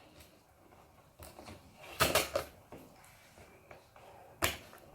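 Quick plastic clicks and clatter from handling a small toy package, loudest as a burst of several clicks about two seconds in, with a single sharp knock near the end.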